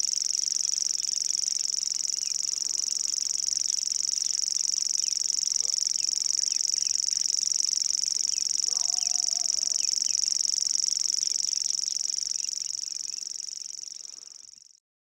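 Savi's warbler singing its reeling song: one long, unbroken, even trill held at a steady pitch, fading out near the end.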